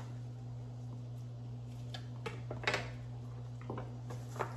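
Chef's knife against a cutting board while fat is trimmed from a rack of raw pork spare ribs: a few short scrapes and knocks, the loudest about two and a half seconds in, over a steady low hum.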